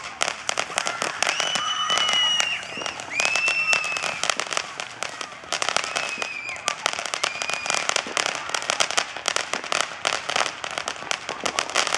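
A firework fountain spraying sparks, with a dense, rapid crackle of small pops throughout. Several brief high whistles sound over it during the first eight seconds.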